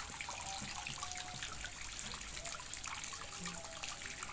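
Water trickling steadily with small drips and splashes, as from a fish pond's water feature.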